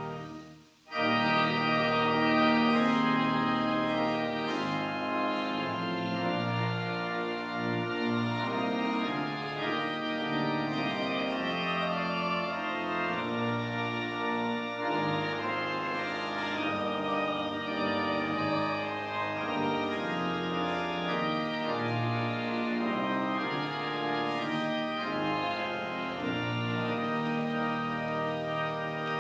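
Church organ playing slow, sustained chords, with a brief break about a second in before it resumes.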